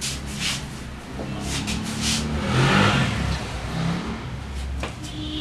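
A motor vehicle engine passing by, swelling to a peak about halfway through and then fading, over a steady low hum, with a few light clicks.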